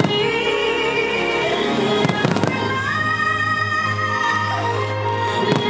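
Fireworks bursting in quick clusters of bangs, about two seconds in and again near the end, over music with long held notes.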